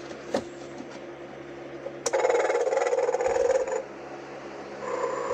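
Telco animated sleeping Santa's recorded snore played through its small built-in speaker: a loud, noisy snore about two seconds in lasting under two seconds, then a softer, more tonal snore starting near the end. A short click comes just before the first snore.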